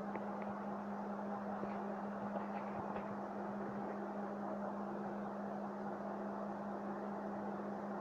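A steady mechanical hum with a constant low drone, like a fan or motor running, with a few faint short high sounds in the first half.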